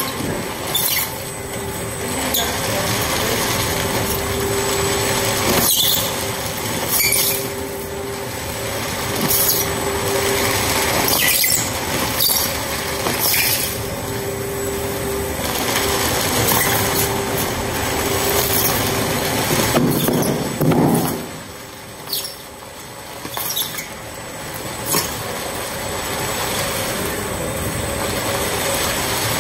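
Industrial LDPE film shredder running under load, its cutter shafts tearing through plastic sacks: a steady mechanical run with a wavering hum and many sharp crackles and squeals as the film rips. The load lets up briefly about three quarters of the way through.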